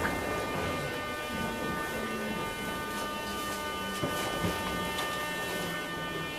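Subway car of a Moscow Metro 81-717.5/714.5 train standing at a platform with its doors open: a steady electrical hum and whine from the car's equipment, several high tones held together. A knock right at the start as the doors open, and a couple of light knocks about four seconds in.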